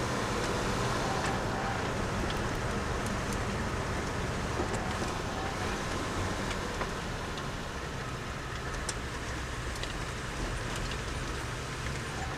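Car driving along a road, a steady mix of engine and tyre noise heard from inside the cabin, with a few light clicks.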